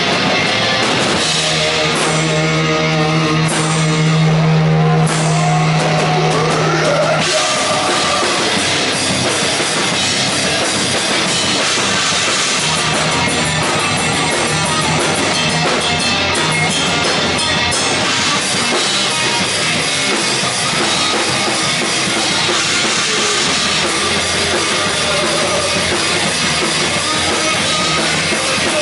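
Live heavy rock band playing loud and dense: distorted electric guitar, bass guitar and a drum kit. A low chord is held for several seconds near the start before the band plays on.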